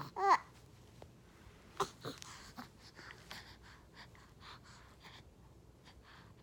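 A single short sneeze with a voiced tone that rises and falls, the loudest sound, just after the start. A sharp click comes a little before two seconds in, then faint breathing noises.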